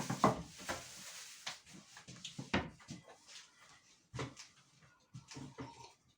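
A series of irregular knocks, taps and clatter from objects being handled and set down, with the loudest just after the start and about two and a half seconds in.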